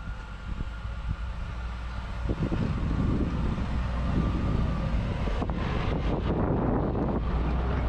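Off-road SUV engine running and driving over rough ground, getting louder about two seconds in as it comes under more load, with a few knocks around the middle.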